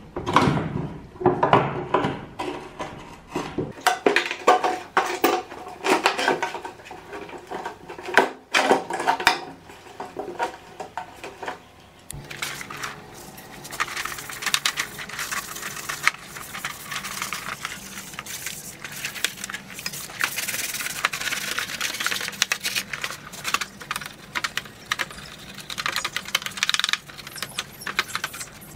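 A run of sharp plastic knocks and clatter. About twelve seconds in it gives way to a fan's plastic grille panel being scrubbed by gloved hands in a basin of soapy water: steady rubbing, squelching and splashing.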